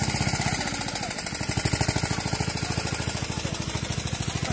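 Small engine running steadily with a fast, even beat.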